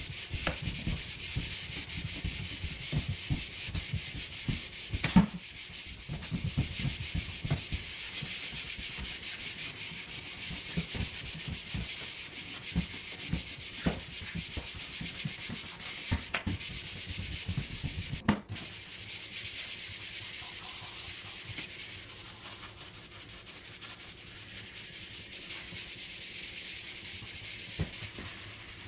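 Hand sanding: sandpaper on a hand sanding block rubbed in back-and-forth strokes over the wood of a side table, a steady scratchy hiss with occasional light knocks of the block against the wood. There is a short break about two-thirds of the way through, and the hiss goes on a little quieter after it.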